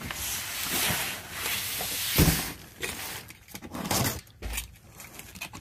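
A large cardboard shipping box being handled: about two seconds of scraping and rustling cardboard, then a heavy thump a little after two seconds in as it is set down, followed by a few lighter knocks.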